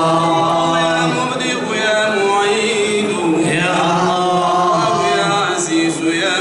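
A group of men's voices chanting a religious song together, in long held notes that slide from one pitch to the next.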